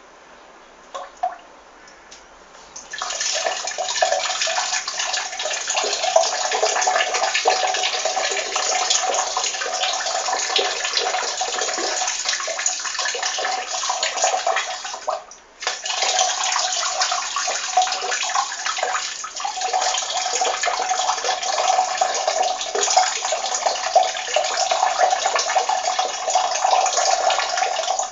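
A stream of urine splashing steadily, starting about three seconds in after a couple of faint clicks. It pauses briefly around halfway, then flows on again.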